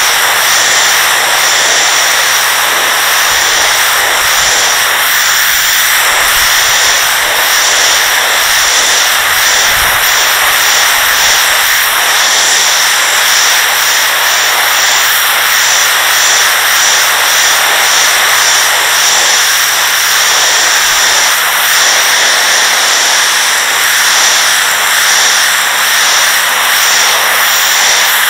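Pressure washer's high-pressure water jet spraying onto porcelain patio slabs: a loud, steady hiss, with a low hum beneath that fades about twenty seconds in.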